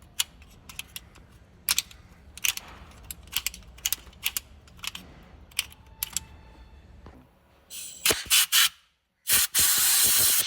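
Hand tools clicking and knocking against metal while carbon is cleaned from a diesel engine's injector bore, then several short hissing spray bursts and a long spray hiss near the end as the bore is blown or sprayed clean.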